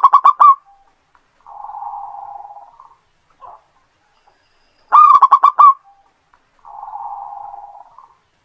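Zebra dove (perkutut) singing two song phrases. Each phrase is a loud run of quick staccato coos followed by a softer rolling purr lasting over a second. The second phrase starts about five seconds in.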